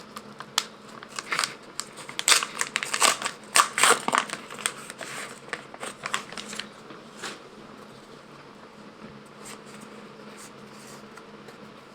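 Plastic wrapper of a small trading-card pack crinkling and rustling as it is opened and the cards are handled. The crinkles come thick for the first seven seconds or so, then thin out to a few faint rustles.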